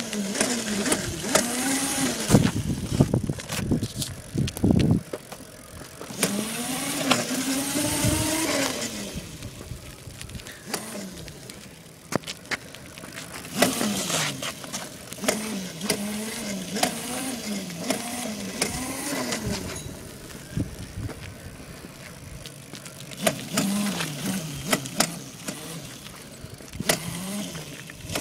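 Child's electric scooter's motor whining, its pitch rising and falling over and over as it speeds up and slows down, with scattered clicks and a couple of brief hissy rushes.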